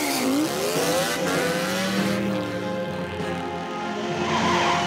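Cartoon car engine sound effect revving up hard as the accelerator is floored, its pitch climbing over the first second, then running on as the car speeds away, over background music.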